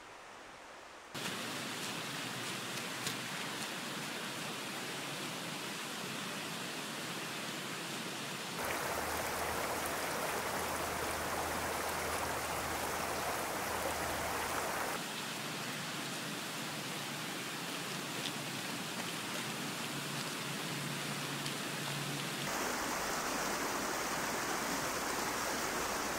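Waterfall, a steady rush of falling water that jumps abruptly in loudness and tone four times.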